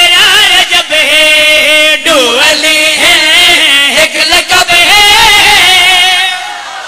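Several men singing a Punjabi qasida loudly together into microphones, one wavering, ornamented melodic line, amplified. The singing breaks off near the end.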